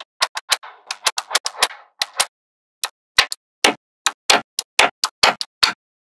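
Small magnetic balls snapping together in a rapid, irregular run of sharp clicks, with a brief rattle of balls rolling against each other about a second in. The clicks grow louder and heavier in the second half.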